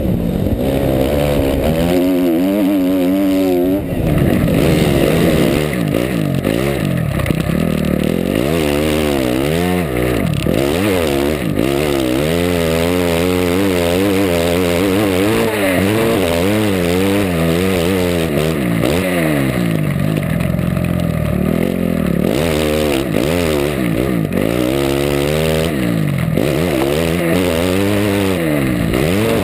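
Motocross bike engine revving up and down again and again through the gears while being ridden hard on a dirt track, heard close up from an onboard camera.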